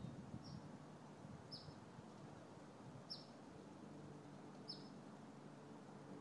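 A small bird chirping faintly: short, high, downward-sliding chirps about every second and a half, over a faint low hum.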